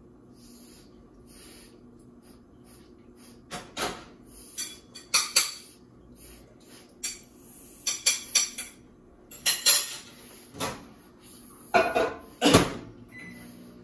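Dishes and utensils clattering: a string of sharp clinks and knocks in irregular clusters, starting a few seconds in.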